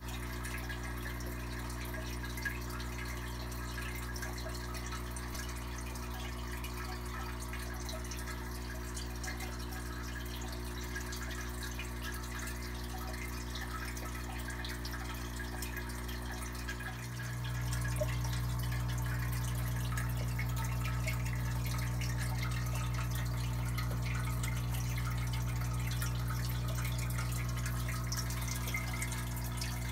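Aquarium filter running: a steady low hum with water trickling and dripping. The hum grows louder about seventeen seconds in.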